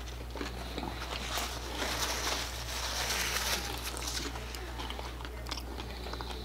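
A person chewing a mouthful of food close to the microphone, with small wet clicks and a rougher stretch of chewing noise in the middle.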